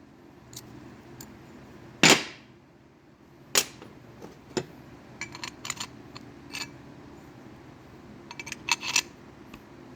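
Metal engine parts, connecting rod pieces and bearing shells, clacking as they are handled and set down on a workbench. One sharp clack about two seconds in, two more over the next few seconds, then scattered light clicks.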